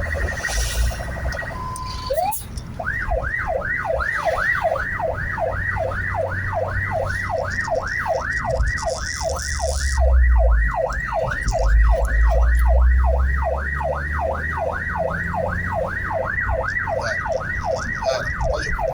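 Emergency vehicle's electronic siren switching patterns: a fast warble, a short steady beep about two seconds in, then a fast yelp of rising sweeps, about three a second. Under it is the low rumble of the vehicle driving.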